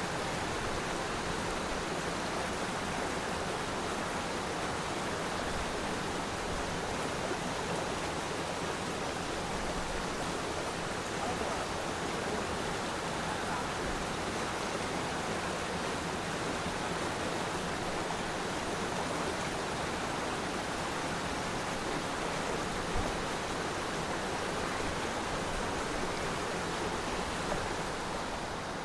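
Waterfall: water falling and rushing over rocks in a steady, even roar.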